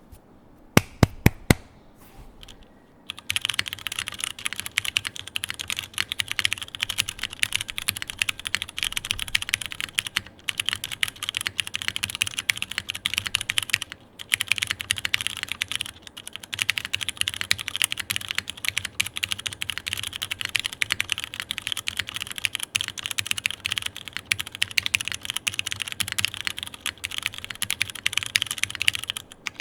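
Typing on a Synovia custom mechanical keyboard with stock Cherry MX2A Brown tactile switches, GMK Dots R2 keycaps, an aluminium plate and grommet gasket mounting. A few separate key strikes come about a second in, then steady fast typing from about three seconds on, with a few short breaks.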